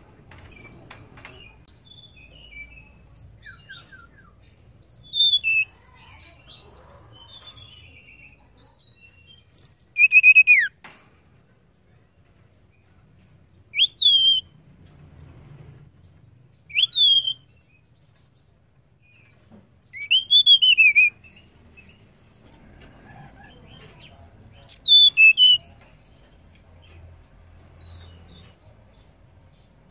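Female tledekan (Cyornis blue flycatcher) calling: six short, high whistled phrases a few seconds apart. Each is a quick sweep or run of notes, some rising then falling sharply, with the loudest phrases about ten seconds in and near twenty-five seconds.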